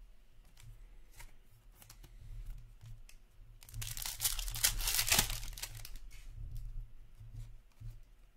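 A foil hockey card pack torn open by hand. The wrapper crinkles and rips, loudest for about two seconds midway, with a few light crinkles before it.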